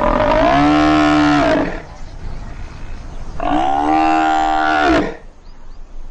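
Cape buffalo cow bellowing twice, each a long call of about a second and a half rising at the start and falling away at the end: the distress calls of an injured buffalo pinned by a lioness.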